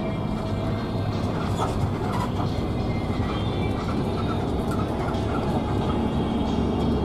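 Cabin noise inside a fast-moving intercity bus: a steady low engine and road rumble.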